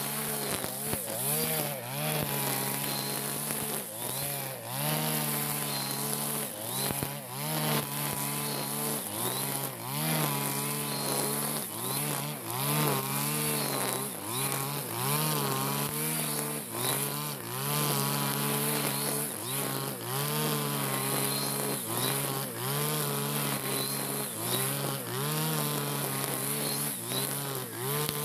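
Freshly serviced backpack brush cutter's engine running at high revs while cutting grass. Its pitch dips briefly every second or two as the cutting head bites into the grass, then picks back up.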